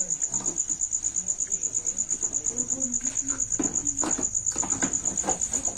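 A cricket chirping steadily in fast, even pulses, about nine a second. In the second half, crackles and knocks of a thin plastic water jar being handled as its plastic lid is fitted.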